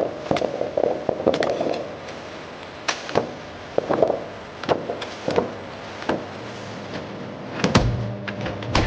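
Irregular clacks and knocks of food-processing machinery, about one or two a second, over a steady mechanical noise; a low hum comes in near the end.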